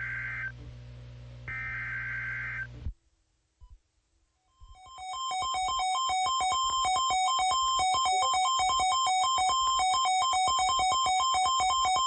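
Emergency Alert System SAME header data bursts: harsh one-second screeches, the last ending about 3 seconds in. After a short pause comes a loud, fast synthesized electronic alert tone that flips rapidly between two pitches with ringing overtones.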